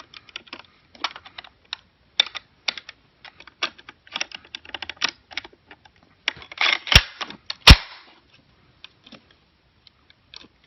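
Steel parts of a Mosin-Nagant rifle bolt clicking and scraping as they are pushed together and turned during reassembly, with two sharp metallic snaps about seven seconds in.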